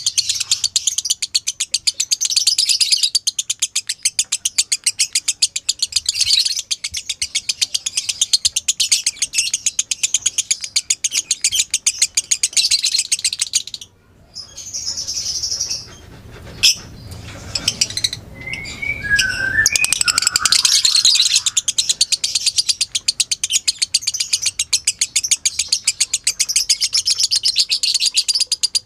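Lovebird giving its long, fast chattering 'ngekek' call: a rapid run of high chirps that breaks off about halfway, gives way to a few separate chirps and short gliding notes, then starts up again and runs on.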